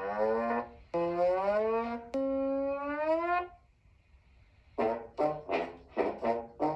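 Trombone played as sound effects: three held notes, each sliding slightly upward in pitch, then after a short pause a quick run of short, choppy blasts.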